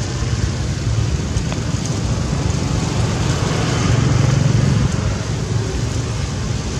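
Steady low engine rumble from a motor vehicle, a little louder about four seconds in.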